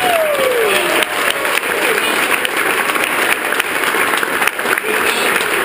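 Audience applauding steadily, with one voice giving a drawn-out cheer that falls in pitch in the first second.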